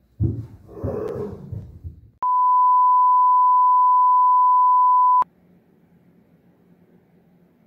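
Steady high-pitched test-tone beep, the kind played over TV colour bars, held for about three seconds and cut off sharply. Before it, about two seconds of breathy noise; after it, faint room tone.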